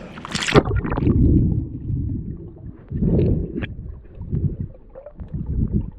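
A brief splash about half a second in, then muffled, low rumbling and sloshing of river water heard through a camera held underwater, coming in uneven surges.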